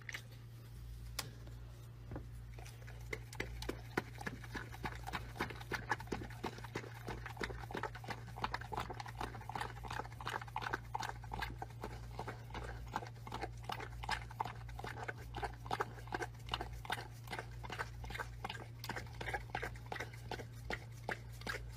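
A dog licking and lapping from a paper cup: quick wet licks, several a second, that pick up about three seconds in and keep going.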